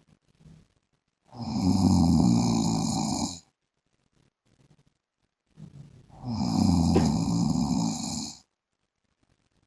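A man snoring in his sleep: two long snores, each about two seconds, some five seconds apart, with quiet breathing between.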